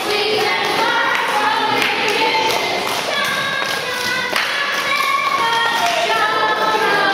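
A group of boys singing together, with scattered claps and a few sharp thumps.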